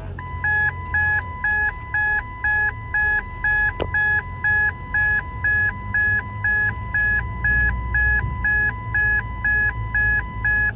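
Car dashboard warning chime beeping steadily, about twice a second, over the low rumble of the running car, with a single click about four seconds in.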